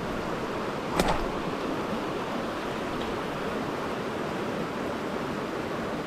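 Fast, shallow glacial meltwater river rushing over gravel, a steady close-up rush of water. One sharp knock about a second in.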